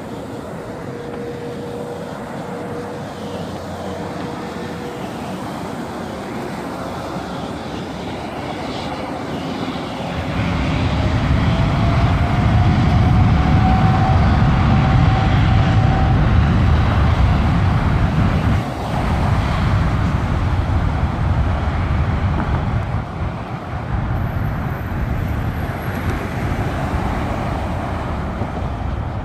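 Jet engines of a LAN Boeing 787 spooling up for takeoff: a whine rises slowly in pitch, then a loud rumble swells as the airliner starts its takeoff roll, loudest for several seconds before easing as it moves away down the runway.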